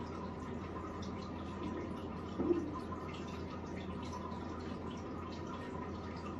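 Water trickling and dripping steadily over a low hum, with one short low-pitched sound about two and a half seconds in.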